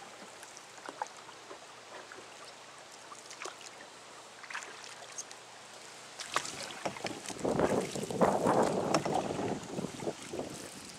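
Canoe moving on a calm river: faint water noise with scattered small knocks and drips. About six seconds in, a louder rustling rumble takes over for a few seconds.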